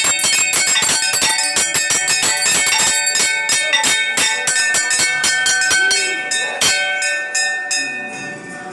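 Temple bells rung by hand in rapid, overlapping strokes, several a second, with a continuous ringing clang; the strokes thin out and fade near the end.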